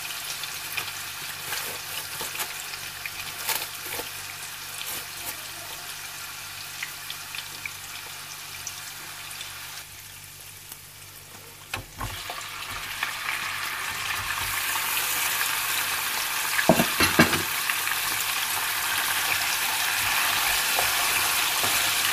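Hot oil with cumin seeds and ginger-garlic paste sizzling in a frying pan; raw lamb pieces are laid in about halfway through and the sizzling grows clearly louder. A spatula knocks and scrapes in the pan a few seconds later as the meat is stirred.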